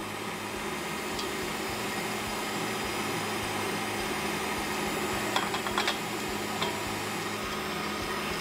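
Electric stand mixer running steadily at speed, beating softened butter with powdered sugar into butter cream. A few light clinks come a little past halfway.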